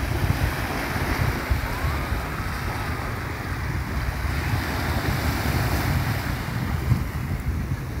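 Small waves washing onto a sandy shore, with wind buffeting the microphone in a steady low rumble.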